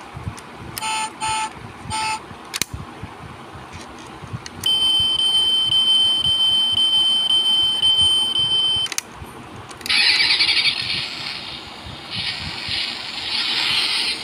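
Sound chip of a diecast Mitsubishi Pajero model playing through its tiny speaker, set off by pressing the toy: three short beeps about a second in, then a steady high-pitched tone for about four seconds, then an engine start-and-rev sound effect near the end.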